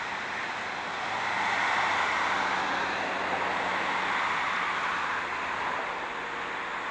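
A line of cars driving past at low speed, a steady rush of tyre and engine noise that swells a second or so in and slowly fades toward the end.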